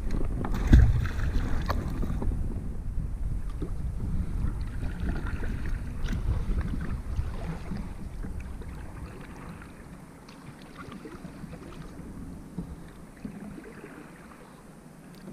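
Water sloshing and splashing around a kayak on a river, with wind rumbling on the microphone; a thump about a second in, then the sound slowly dies down.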